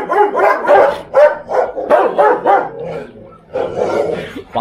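A dog barking aggressively in a fast run of loud barks, about three or four a second, with a short lull a little after three seconds.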